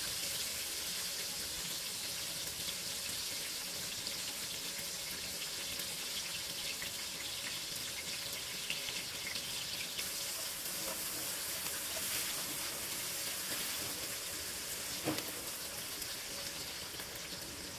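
Onion, lemongrass, chillies, garlic and ginger sizzling steadily in hot oil in a wok as the aromatics sauté. A spatula knocks and scrapes in the pan a few times near the end.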